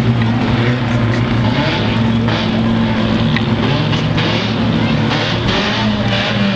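Engines of a pack of mini stock race cars running at speed around a dirt oval, several engine notes blended together with their pitch shifting slightly.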